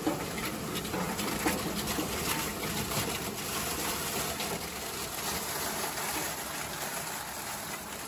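Scallops and seawater pouring out of a wire cage tipped up on forklift forks: a steady gushing with many small clattering knocks of shells.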